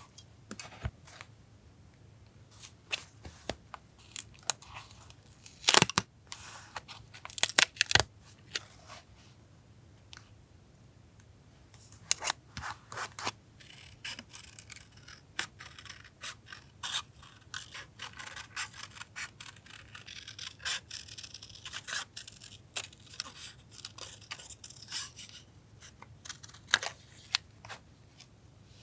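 Paper collage work: scattered light clicks and taps, with stretches of paper rustling, cutting and tearing, over a faint steady low hum.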